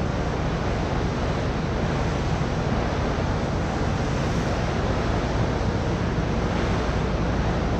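Steady rush of wind on the microphone and moving seawater, with a constant low rumble underneath, even and unbroken throughout.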